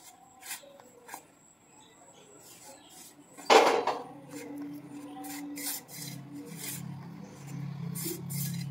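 Hands rubbing and kneading wheat-flour dough on a metal plate, with small clinks of steel utensils. About three and a half seconds in comes one loud clank as a steel bowl is set down, and a low hum runs through the second half.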